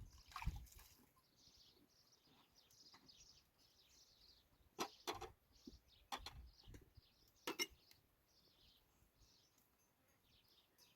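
Faint bird chirps in open country, with a few sharp knocks or clicks around the middle.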